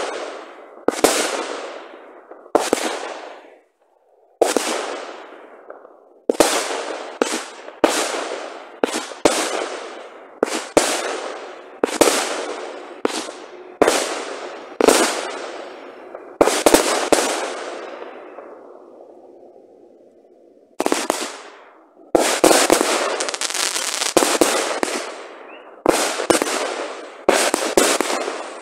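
Aerial fireworks going off in a steady run of sharp bangs, roughly one a second, each fading away in an echoing tail. About three-quarters of the way through, a dense cluster of rapid bangs follows a brief lull.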